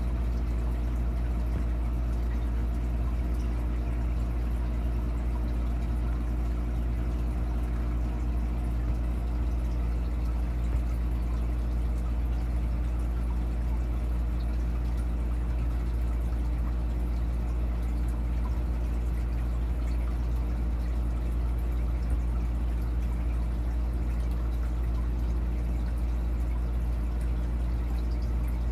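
Aquarium filter running: a steady low hum with water trickling and pouring.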